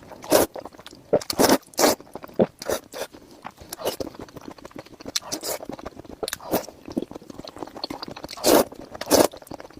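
Close-miked eating of noodle soup: slurping noodles and chewing, in short irregular bursts, with a louder run of slurps near the end.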